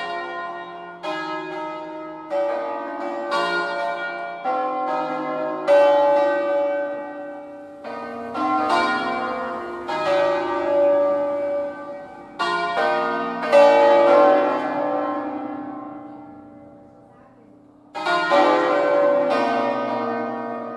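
Hand-rung bronze church bells from a five-bell ring in B-flat, cast by Felice Bizzozero in 1859, swung on large wheels in a full peal. Strike after strike overlaps into a ringing wash; the strikes pause and the ringing fades for about two seconds before they pick up again near the end.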